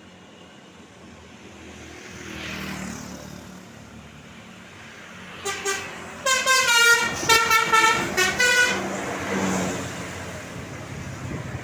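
Tour bus telolet horn playing a quick run of short tooting notes of changing pitch, starting about halfway through, as the bus passes close by. Before it, another vehicle goes past.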